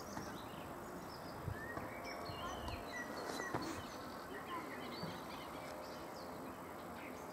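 Quiet open-air ambience: a steady low hiss with many short, high chirps scattered through it.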